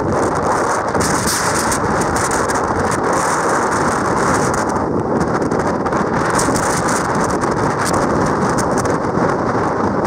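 Strong typhoon wind buffeting the microphone over heavy surf breaking on the shore: a loud, steady rush of noise that surges and eases every second or two.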